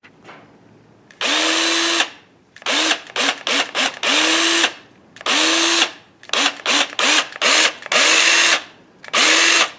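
Electric drill motor spun up in about a dozen quick trigger pulls, some short blips and some held for nearly a second, each with a rising whine that levels off before it stops.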